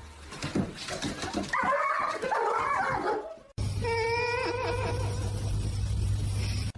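A dog whining and yipping, then after an abrupt cut a longer, wavering whine.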